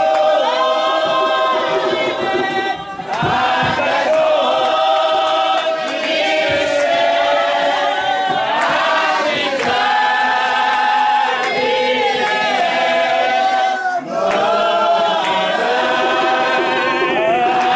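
Spiritual Baptist congregation singing together in chorus, many voices holding long, sliding notes, with two short breaks between lines.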